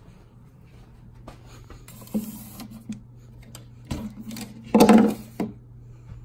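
Close handling noise: clicks, knocks and rubbing as a hand handles an object on a wooden nightstand, with the loudest rustling burst about five seconds in. A steady low hum runs underneath.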